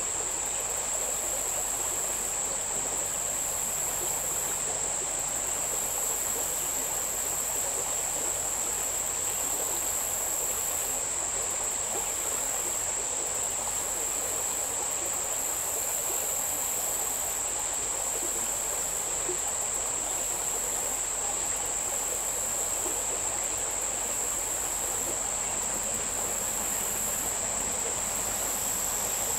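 A steady high-pitched chorus of insects singing, with a still higher buzzing that comes and goes every second or two, over the low, even rush of a small mountain stream.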